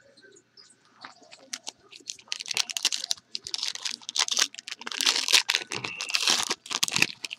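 Plastic or foil card-pack wrapping crinkling and tearing as it is opened by hand, in quick rustling bursts that grow louder from about two seconds in.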